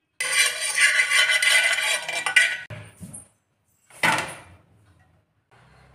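Metal spoon scraping around the bottom of an aluminium pressure cooker, spreading ghee, the pan ringing under it for about two and a half seconds. A single sharp metal knock follows about four seconds in.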